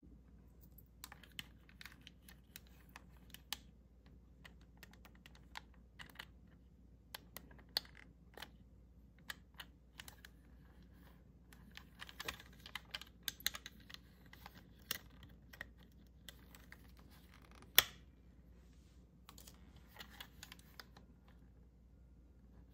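Faint, irregular small clicks and taps of a toy and its packaging being handled, with one sharper click about 18 seconds in.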